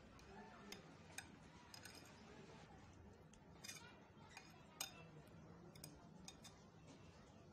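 Faint, irregular clicking and scraping of a wire whisk against a ceramic plate, beating eggs into chopped potatoes and vegetables.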